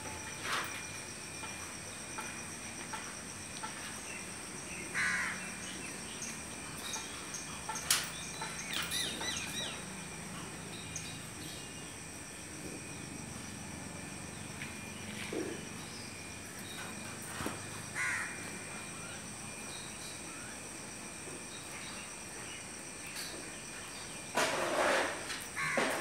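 Outdoor ambience: a steady high insect drone with a few crow caws now and then, and a louder stretch of rustling noise near the end.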